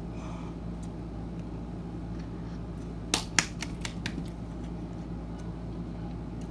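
A steady low hum, with a quick run of sharp clicks from eating hot cup noodles about three seconds in.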